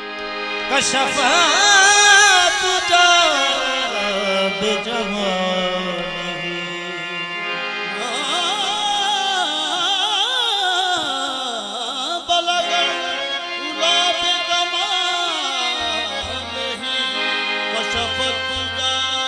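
Qawwali music: harmoniums sustaining chords under a singer's wavering, ornamented melodic line, with no clear words.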